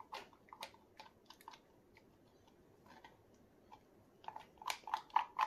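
Faint, scattered clicks and taps of small objects being handled, sparse at first and coming quicker near the end.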